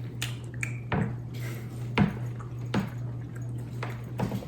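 A person chewing beef jerky: short, wet mouth clicks and smacks, about one a second, over a steady low electrical hum.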